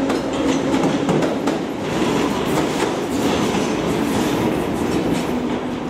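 London Underground D78 Stock train running past, its wheels clattering over the rail joints with a steady hum underneath.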